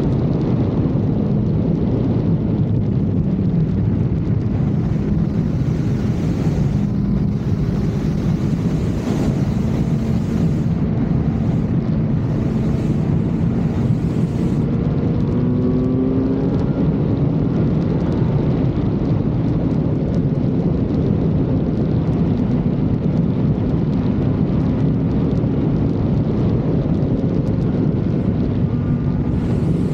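Kawasaki Z900 inline-four engine running under way at fairly steady revs, with wind noise on the camera's microphone. The engine pitch rises and falls a little a few times around the middle.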